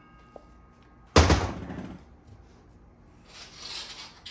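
Steel parts of a Dodge 48RE transmission's planetary gear train clunking together once, loudly, about a second in, as the assembly is lifted and turned by hand, followed near the end by a short metallic scraping rustle.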